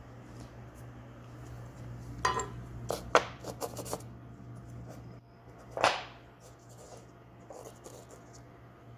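Handling noises: a few clicks and scrapes about two to four seconds in and a short louder rubbing swish just past the middle, over a low steady hum.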